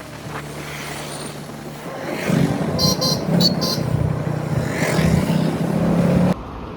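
A car driving, its engine and road noise a steady low hum, with a few short high-pitched chirps about three seconds in.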